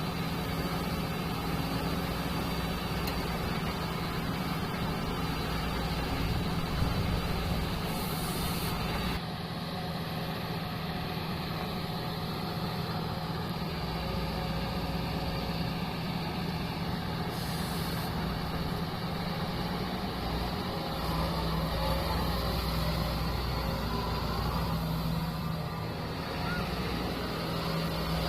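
Heavy diesel engine running steadily, with a constant low hum.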